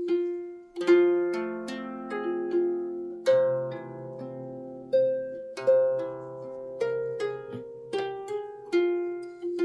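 Background music: a slow, calm melody of plucked string notes, each starting sharply and ringing out as it fades, over a few held lower notes.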